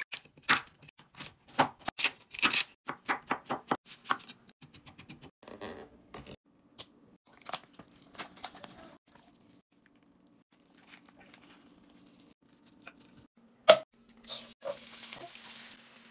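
Chef's knife chopping carrots on a wooden cutting board, a quick run of crisp chops over the first four seconds. Then softer tearing as a roast chicken is pulled apart by hand, and near the end a sharp knock followed by the hiss of diced onion sizzling in a frying pan.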